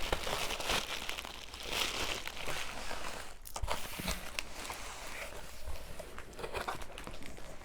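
Wrapping paper crinkling and rustling in irregular handling noises as a gift package is unwrapped by hand, with scattered small clicks and taps.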